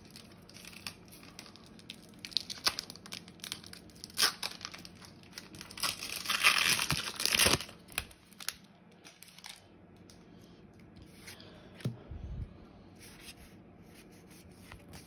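Foil booster-pack wrapper crinkling and tearing in the hands, in scattered crackles with the longest, loudest rip lasting about a second and a half around the middle. A dull thump follows near the end.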